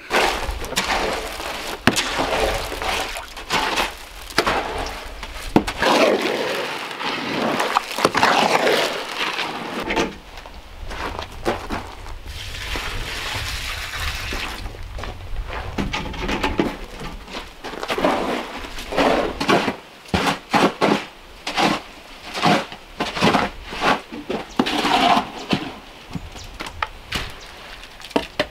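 A long-handled hoe chopping and scraping through wet mortar in a plastic sled tub, with repeated knocks and scrapes. Water is poured in from a bucket partway through, a steady splashing hiss.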